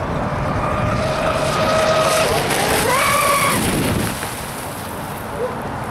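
Fast RC speedboat's motor whining at speed as it runs across the water, the whine rising in pitch about three seconds in, then falling and fading a second later.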